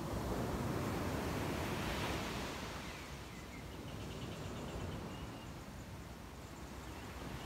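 Ocean surf washing onto a sandy beach, a wave swelling in the first couple of seconds and then easing off.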